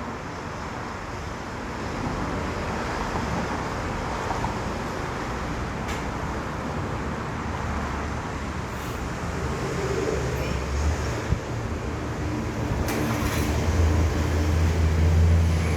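Steady vehicle and traffic noise, with a few short clicks. A low, steady engine hum comes in about two-thirds of the way through and grows louder toward the end.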